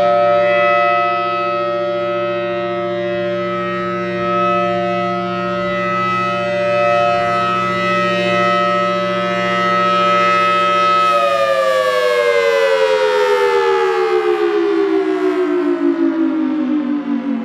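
Federal Signal Thunderbolt 1000T outdoor warning siren sounding its steady alert tone, which swells and fades slowly in loudness. About two-thirds of the way through, the tone starts winding down, its pitch falling steadily as the siren shuts off at the end of the alert test.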